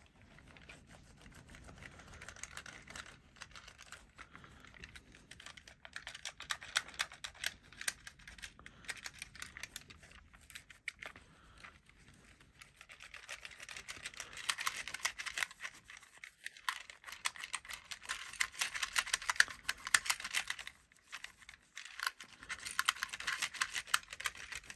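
Soft microfibre cloth rubbed briskly over a die-cast toy car's body, buffing on polish: a dense run of quick scuffing strokes. It grows busier and louder in the second half, with short lulls about halfway through and near the end.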